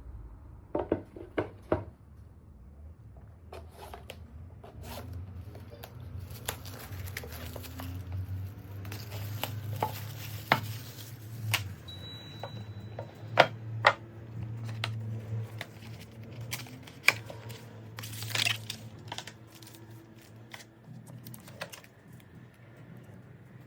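Unboxing of a smartphone: packaging being torn and crinkled, with many sharp clicks and knocks as the box and its contents are handled.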